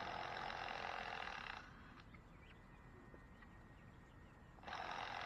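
Handheld power driver running screws into a wooden coop frame, in two bursts of about a second and a half each: one at the start and one near the end.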